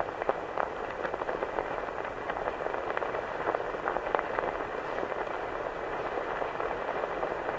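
Vintage newsreel film noise: a steady band of hiss thick with crackles and pops, the sound of old film running.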